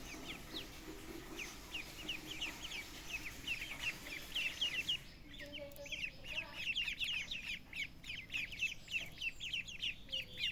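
A group of baby chicks peeping without pause, many short, high, falling cheeps overlapping.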